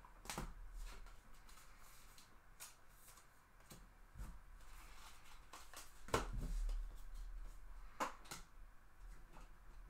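Baseball trading cards being handled and set down on a tabletop: soft slides and rustles with a few light taps, the sharpest about six seconds in and two more close together about eight seconds in.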